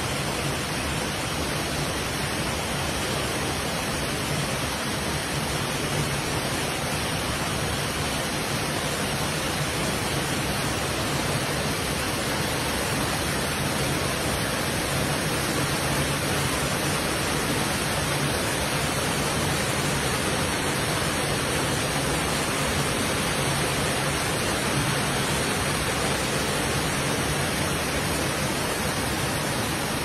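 Small waterfall pouring through a narrow rock gorge into a round plunge pool: a steady, unbroken rush of falling water.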